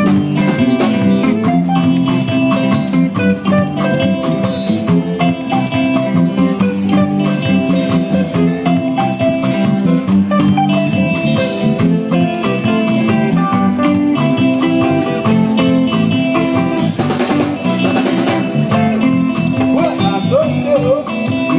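Live Afropop band playing an instrumental passage: guitar over a drum kit keeping a steady beat, with a cymbal crash about three-quarters of the way through.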